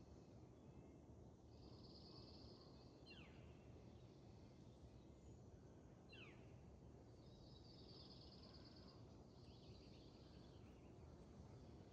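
Faint wild birdsong: several short, high trilled phrases and two quick downward-sliding whistles, about three seconds apart, over a steady low outdoor background hum.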